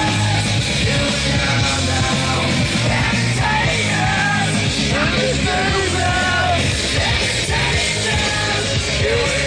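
Loud punk-style rock music with a heavy steady bass and shouted vocals.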